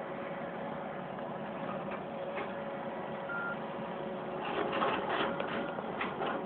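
Heavy diesel machinery running steadily. A short single beep sounds about three seconds in, and a spell of clicks and knocks comes near the end.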